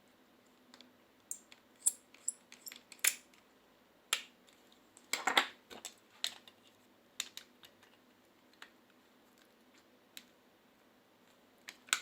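Irregular clicks and light taps of small parts being handled during a cordless hair clipper repair, with a louder cluster of knocks a little past halfway.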